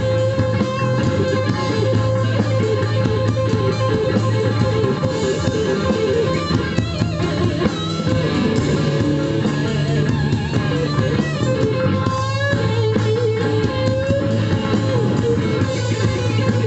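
Blues band playing an instrumental passage: electric guitar lines over a sustained low bass note.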